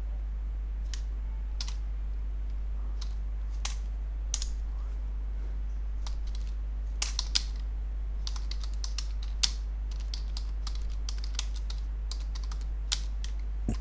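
Typing on a computer keyboard: a few scattered keystrokes at first, then a quicker, denser run of key clicks through the second half. A steady low hum sits underneath.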